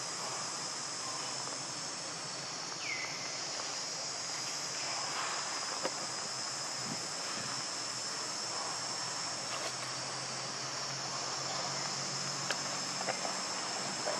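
Steady high-pitched drone of insects in the forest, unbroken throughout, with a short falling chirp about three seconds in and a few light ticks near the end.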